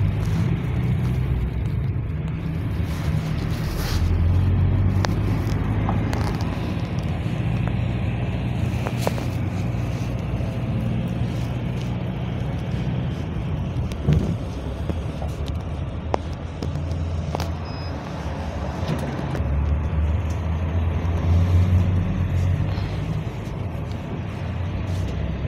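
Engine drone and road noise heard from inside a GAZ Next minibus moving in city traffic, with scattered short clicks and rattles. The low drone grows louder a few seconds in and again near the end.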